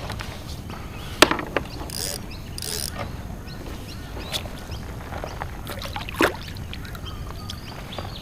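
Fishing reel and tackle being handled on a kayak: light mechanical clicking and rattling, with a sharp knock about a second in and another around six seconds in.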